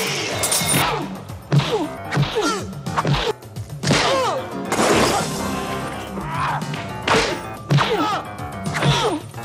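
Movie fight sound effects: about a dozen sharp punch and kick impacts, with a crash near the start as a table is kicked over, mixed with sharp shouted yells and grunts, over background music.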